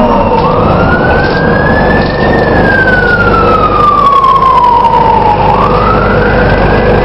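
Dennis Dart bus with Plaxton Pointer body making a loud whirring whine that rises in pitch for about two seconds, falls slowly for about three, then climbs again near the end, over a steady lower hum and engine rumble.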